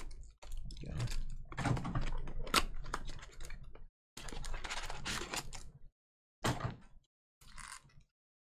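Baseball trading cards being handled and flipped through by hand: quick, irregular clicking and slapping of card stock in short runs, with brief dead gaps between them.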